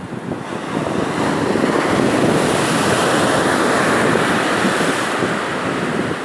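Sea waves breaking and washing up the shore, the surge building over the first couple of seconds, loudest in the middle, then easing near the end.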